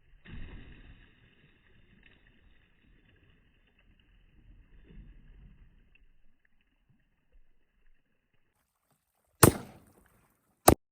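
Two rifle shots about a second and a half apart near the end, the first trailing off with a short echo, the second cut off sharply.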